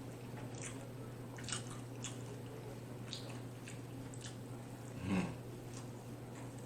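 Close-miked chewing of a steak taco: irregular wet smacking and squishing mouth clicks, with one louder throat sound about five seconds in, over a steady low hum.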